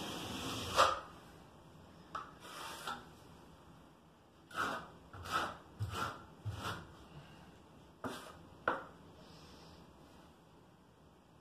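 Short scraping and rubbing strokes of a hand trowel working thinset mortar and setting ceramic subway tiles on a shower wall, with a sharp tap about three-quarters of the way through.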